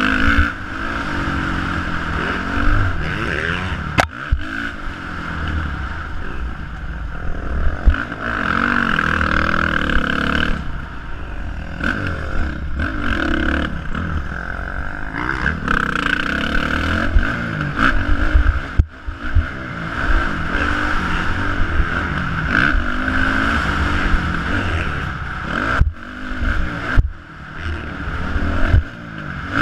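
Dirt bike engine revving up and down over and over as it is ridden around a motocross track, heard from the bike itself, with occasional knocks from the bike over bumps.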